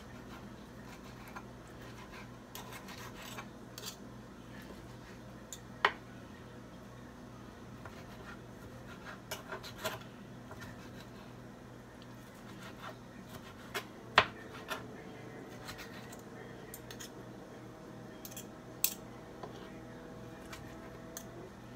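Table knife sawing through cooked steak on a plastic cutting board, with scattered scrapes and light clicks of the knife and fork against the board and three sharper clicks standing out. A low steady hum runs underneath.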